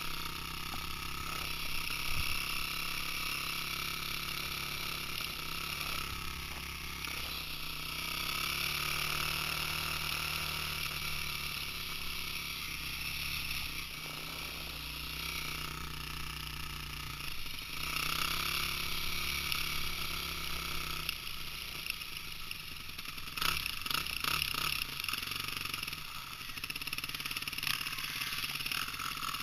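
Dirt bike engine running, its pitch rising and falling with the throttle. A burst of sharp knocks and rattles comes about three-quarters of the way in.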